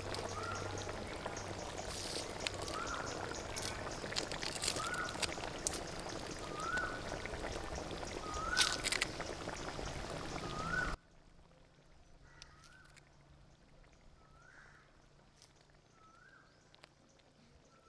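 Chicken curry bubbling at a boil in a large iron kadai, an even hiss with many small pops. An animal's short rising call repeats about once a second throughout. About eleven seconds in, everything drops suddenly to a much fainter level.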